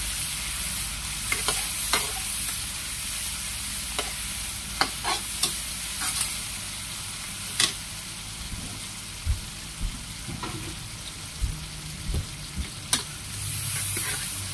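Chopped shallots, garlic and chillies sizzling in hot oil in a wok, stirred with a metal spatula that clinks and scrapes against the pan at irregular moments, about once a second.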